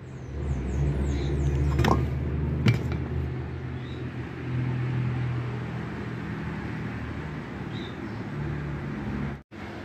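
A low, steady motor-like rumble, with two sharp knocks about two and three seconds in; the sound drops out completely for an instant near the end.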